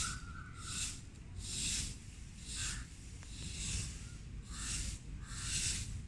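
Long-handled broom sweeping a sandy courtyard: a steady run of swishes, about one a second.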